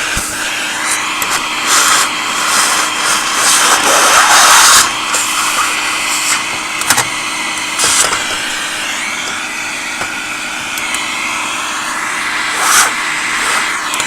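Vacuum cleaner running steadily while cleaning dust out of a tube radio's chassis. The rush of air at the nozzle swells in several brief louder surges, the loudest about four to five seconds in.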